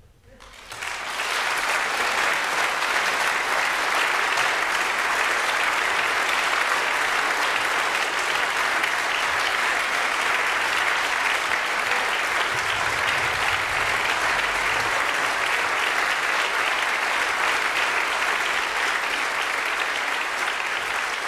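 Audience applauding, breaking out about a second in and then holding steady.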